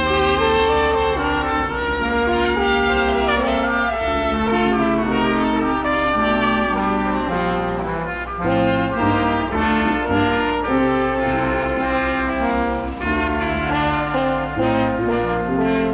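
A brass ensemble playing Christmas music, several parts moving together in chords.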